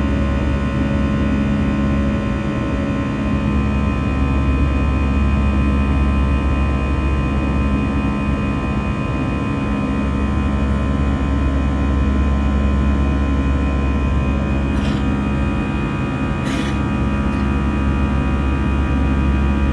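Airliner's turbofan engines at climb power, heard inside the cabin over the wing: a steady, loud low rumble with a drone of steady whining tones above it. Two short clicks come near the end, under two seconds apart.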